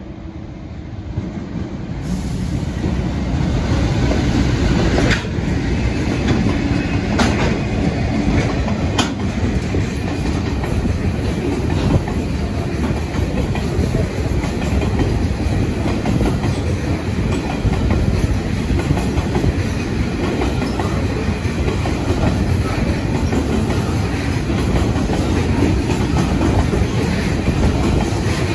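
A train passing close by. Its noise builds over the first few seconds and then runs loud and steady, with a few sharp clicks of wheels over rail joints.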